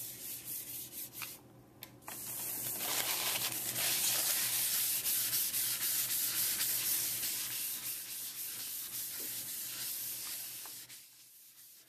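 A hand rubbing and smoothing a layer of compressed charcoal into drawing paper: a steady, dry, scratchy rubbing. It pauses briefly about 1.5 seconds in, then carries on and dies away near the end.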